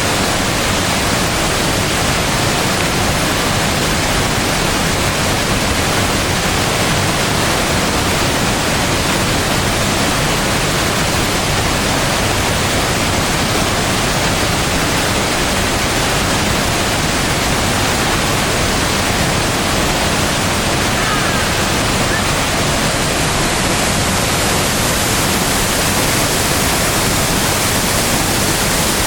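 A waterfall of some twenty-odd metres in full spring flow, its falling water making a loud, steady, thunderous rush without let-up.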